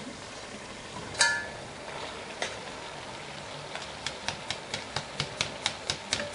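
Chopped spinach being knocked out of a plastic colander into a stainless steel pot with a metal spoon: one sharp clink about a second in, then a quick run of taps, about four a second, over the last two and a half seconds, against a low steady hiss.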